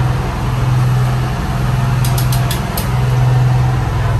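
Passenger boat's engines running with a steady, loud low drone, heard inside the wheelhouse. A few short faint clicks come about two seconds in.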